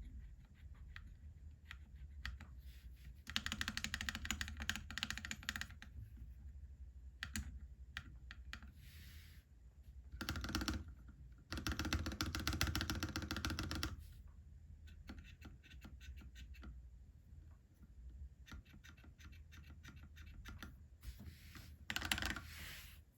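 Custom mechanical keyboard with lubed Akko POM Pink linear switches on an aluminium plate, with Shenpo keycaps, being typed on: scattered single keystrokes broken by bursts of fast typing about three seconds in, from about ten to fourteen seconds, and again near the end.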